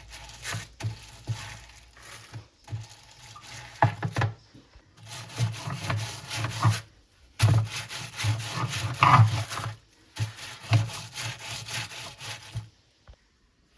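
Paint roller rolled back and forth through paint, in several spells of rubbing strokes with short pauses between them, stopping about a second before the end.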